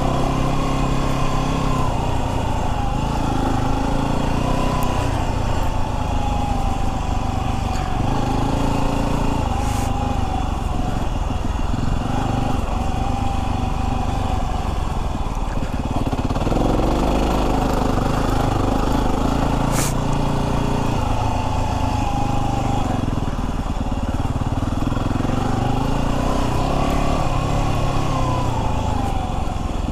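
Yamaha WR250R's 250 cc single-cylinder four-stroke engine running under way on a dirt road, its note rising and falling with the throttle.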